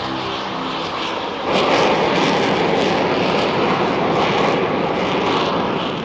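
Jet engines of a formation of Aermacchi MB-339 PAN trainers taking off and climbing away: a steady, loud rushing noise. It jumps sharply louder about one and a half seconds in.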